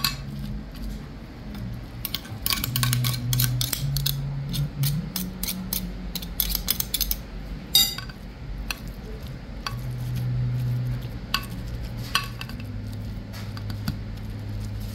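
Metal bean masher pressing roasted serrano chiles in a glass baking dish, its plate clinking and knocking against the glass in a quick run of strikes that thins out to a few scattered knocks in the second half.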